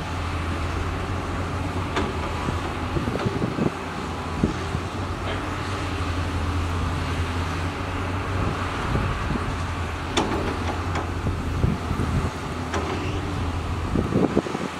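Diesel engines of several crawler excavators, Hyundai R220LC-9S machines among them, running steadily while digging, with a few sharp knocks from the working machines.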